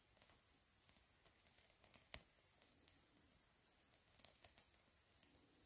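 Near silence with faint, scattered small crackles and ticks, the loudest about two seconds in, as dry pine-needle and leaf tinder starts to catch from a lighter flame. A faint steady high hiss lies underneath.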